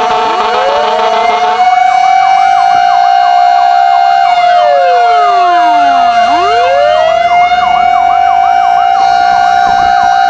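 Several fire-truck sirens sounding at once: a held steady tone, slow wails that fall and rise again, and a fast yelp of quick up-and-down sweeps. They get louder about a second and a half in.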